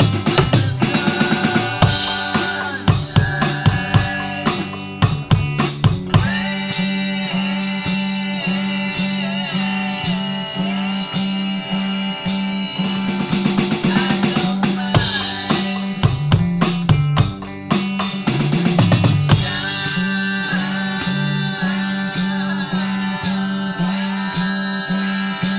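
A song with guitar and a steady drum beat, the drums played on an electronic drum kit, with sharp cymbal strikes at an even pace.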